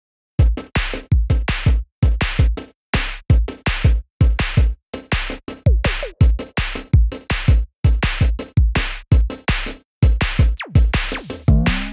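Electronic background music with a choppy drum-machine beat and deep bass, starting abruptly about half a second in after silence.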